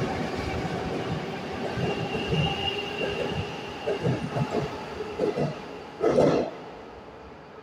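81-740.1 Rusich metro train pulling out of the station past the platform: a steady rumble with wheels knocking over rail joints and a high whine for a second or two. There is a short loud burst about six seconds in as the last car goes by, then the sound falls away.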